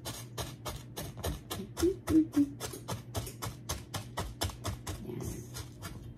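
A spatula stirring dry oats and brown sugar in a mixing bowl, making a quick, even run of scraping clicks, about five a second. The stirring is to break up clumped brown sugar.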